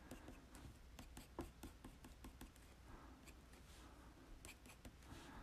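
Faint, quick pencil strokes scratching on paper, many short ticks one after another as small stubble lines are hatched in.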